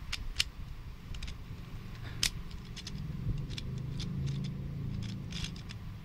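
Gear Shift geared twisty puzzle being twisted by hand to scramble it. Its plastic pieces and gears give sharp, irregular clicks and rattles, over a low steady hum that grows louder about halfway through.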